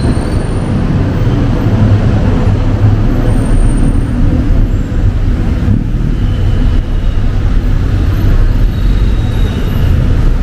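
Steady, loud road traffic: cars and buses running past in a dense low rumble.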